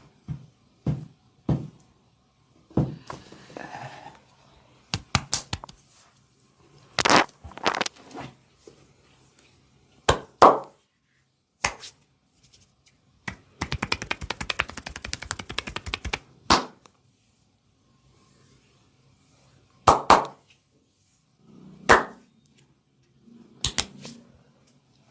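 Percussive massage: hands slapping and striking the body in separate sharp smacks, several of them loud. Midway comes a run of rapid, evenly spaced tapping strikes lasting about two and a half seconds.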